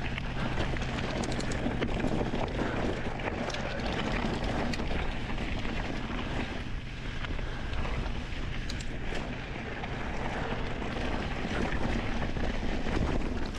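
Mountain bike rolling fast down a rocky trail: wind rushing over the microphone, with tyres crunching on rock and gravel and the bike rattling, and a few sharp knocks from rock hits.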